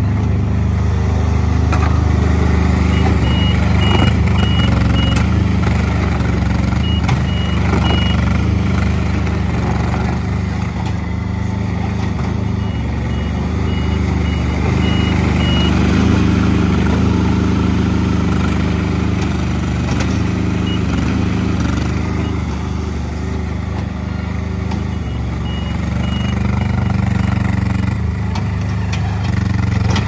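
Worky Quad WX15 skid steer loader's engine running steadily, while a reversing alarm beeps about twice a second in several short runs as the machine backs up.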